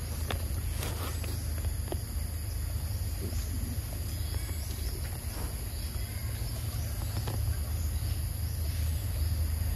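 Outdoor ambience: a steady high-pitched insect chorus over a constant low rumble, with a few faint ticks.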